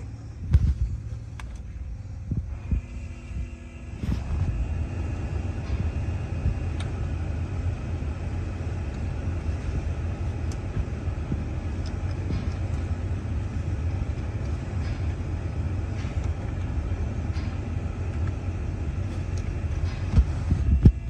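Pickup's climate-control blower fan switched on about four seconds in and then running steadily, a constant rush of air with a low rumble and a faint steady whine. A few clicks of dashboard buttons come before it.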